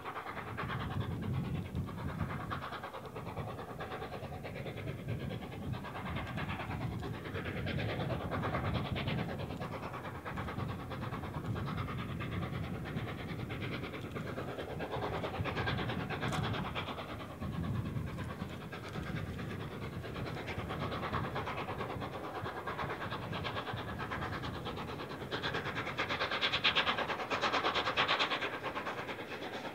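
Steam locomotive 60163 Tornado, a new-build LNER Peppercorn A1 Pacific, working a passenger train: its exhaust and the running of the train, getting louder near the end as it draws closer.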